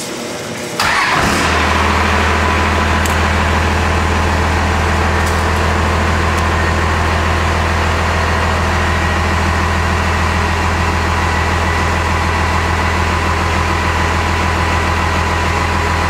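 Cummins diesel engine swapped into a Chevy pickup, heard through its 5-inch exhaust. It comes in suddenly about a second in, then settles into a steady low idle of about 800 rpm.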